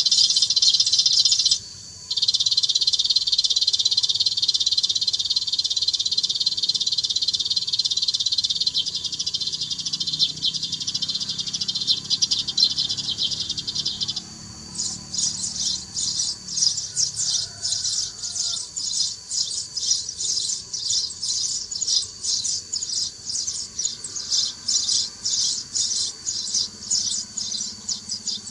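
Bird-trapping lure speaker playing recorded sparrow chirping. A dense, unbroken chatter cuts out briefly about two seconds in, then about halfway through switches abruptly to rapid, evenly repeated chirps.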